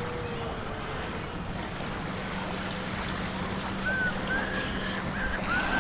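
Boat engine running with a steady low hum under the rush of water and wind buffeting the microphone. A few short faint high gliding calls come through near the end.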